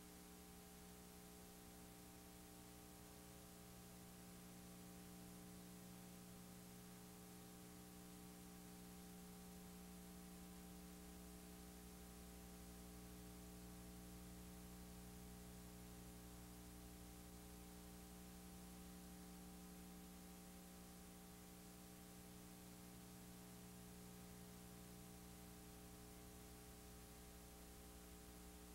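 Near silence: a faint, steady electrical mains hum with a light hiss.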